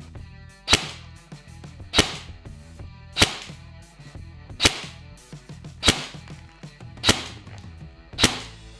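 A&K K25 (SR25/M110-style) electric airsoft rifle firing single semi-automatic shots, seven sharp cracks about 1.2 seconds apart, over background music. The rifle is being shot across a chronograph to measure muzzle velocity.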